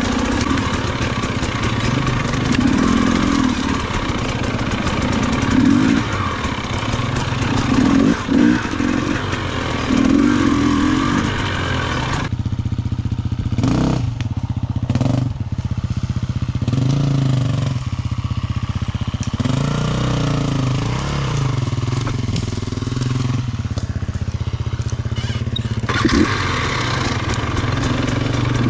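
Off-road dirt bike engine revving in repeated short bursts as the bike is ridden over rough ground. From about halfway through until shortly before the end the sound is duller and more muffled, with slower rising and falling revs, then it turns bright again.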